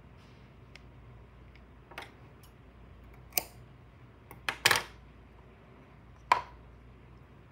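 A handful of sharp clicks and clacks of craft tools handled on a wooden tabletop: a pair of scissors set down about halfway through, and a wooden craft stick knocking against a plastic glue cup near the end with a brief ring.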